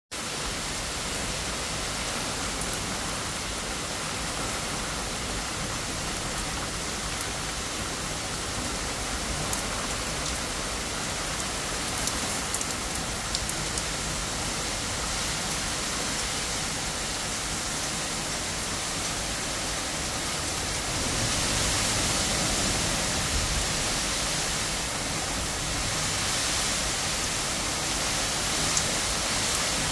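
Steady rain falling, an even hiss with a few sharp clicks of single drops landing close by. It grows louder for a few seconds about two-thirds of the way through.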